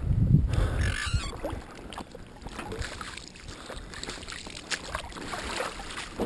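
Lake water sloshing and splashing around a hand pulling clumps of weed off a fishing line, with scattered small splashes. A low rumble is loudest in the first second.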